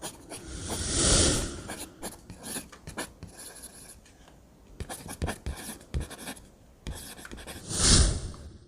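Scratchy rubbing and rustling noises with scattered clicks, swelling louder twice: about a second in and again near the end.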